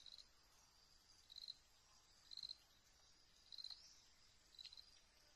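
Insects chirping: a steady high drone with short high chirps repeating about once a second, faint.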